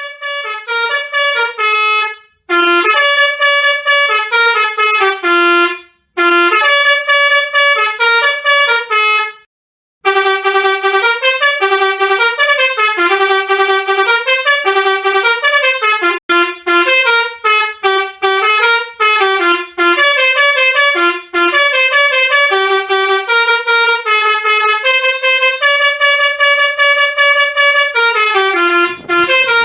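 Bus 'telolet basuri' multi-tone musical horn playing a tune of quick-changing notes, broken by short pauses about 2, 6 and 10 seconds in. Near the end a low rumble comes in under the horn.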